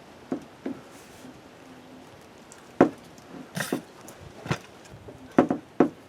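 Irregular sharp clicks and knocks, about seven of them, from a 1/2-inch ratchet being worked on the crankshaft bolt to turn the engine over by hand. One noisier, scraping sound comes about halfway through.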